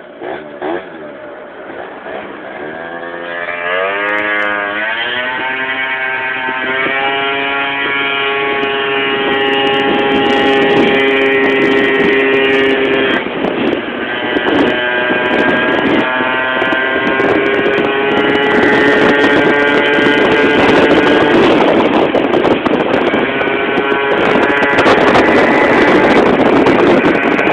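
Piaggio Typhoon scooter engine accelerating hard: its pitch climbs over the first several seconds, then holds high and steady at full throttle, with a short dip about 13 seconds in. Wind noise on the microphone builds as speed rises.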